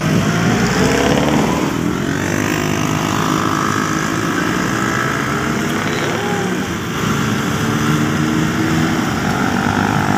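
Motorcycle engines running and passing close by, their pitch rising and falling as they go, over steady street traffic noise.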